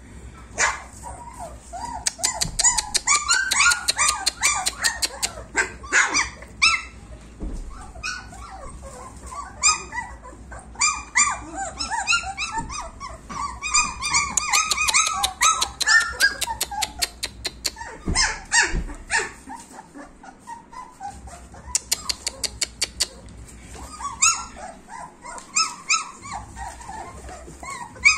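A litter of young German Shepherd puppies whining and yelping, many short high calls overlapping almost without a break, quieter for a moment past the middle. Bursts of rapid clicking come through now and then.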